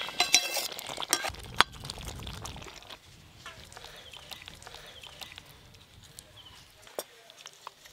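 Metal spatula scraping and knocking against an aluminium pot as a thick potato and pointed-gourd curry slides out into a steel bowl, with a couple of sharp clinks. An animal calls in the background, loudest in the first second.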